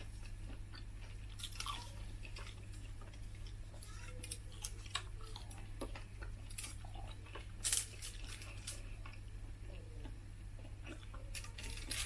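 Close-up chewing and biting of crispy fried chicken skin: small crunches and wet mouth clicks scattered through, with one louder bite a little under eight seconds in.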